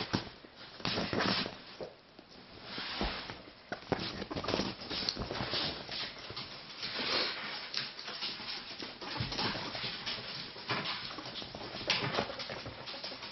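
Ferrets scrabbling, sliding and twisting on a leather sofa in play: an irregular run of scuffs and rubs of claws and fur on the leather.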